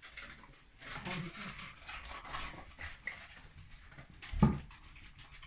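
Irish wolfhounds eating soft-serve ice cream from a hand, licking and smacking at it. One short, loud low thump comes about four and a half seconds in.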